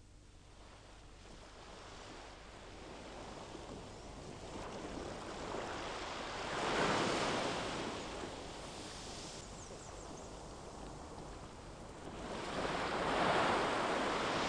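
Sea surf washing on a beach, fading in from near silence and swelling twice as waves break, about halfway through and again near the end.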